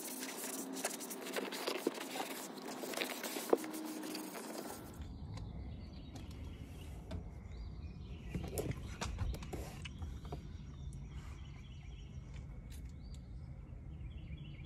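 An applicator pad rubbing across a truck's plastic dashboard as a dressing is wiped on: a scratchy rubbing with small clicks for about the first five seconds. Then a faint outdoor ambience with a low rumble and a few faint chirps.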